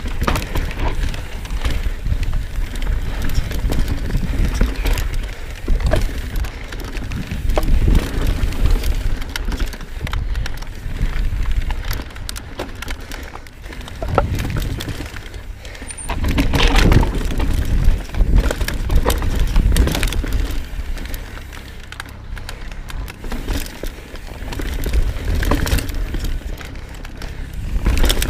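Knolly Fugitive mountain bike riding over rocky singletrack: tyres crunching over rocks and dirt, with frequent clicks and knocks from the bike rattling, over a steady low rumble. The clatter is loudest about two-thirds of the way through and again near the end.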